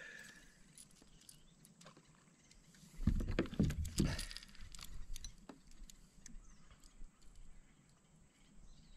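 Faint handling noises of a small largemouth bass and fishing lure held in the hands: scattered small clicks and rustles, with a louder burst of rustling and knocks about three seconds in.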